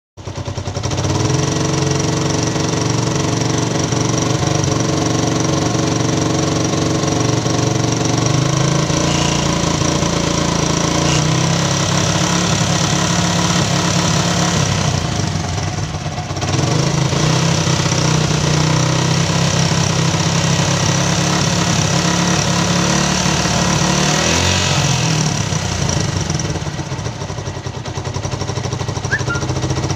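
Liquid-cooled motorcycle engine running steadily with the radiator cap off, its note dipping briefly around the middle and again near the end. The radiator is running hot and spurting coolant from the open filler neck, a sign of a faulty cooling system.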